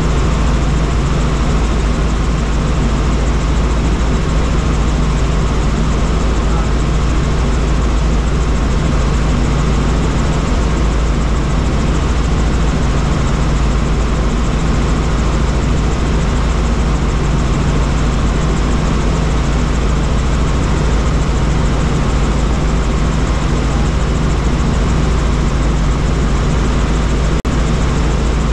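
Helicopter in flight: a loud, steady drone with a deep, even hum underneath.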